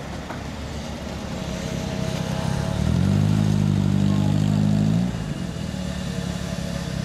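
Triumph Spitfire's four-cylinder engine pulling away. The engine note swells about three seconds in, holds steady for about two seconds under throttle, then drops back as the throttle is lifted.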